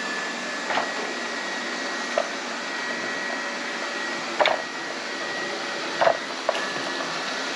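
Lefant M210B robot vacuum running with a steady whirr and a thin high whine. A handful of short sharp knocks or clicks break in, the loudest about halfway through and near the end.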